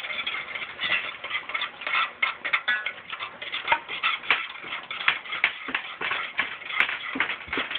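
Metal spoon scraping and clinking rapidly and irregularly against a stainless steel saucepan while stirring a roux thinned with chicken broth.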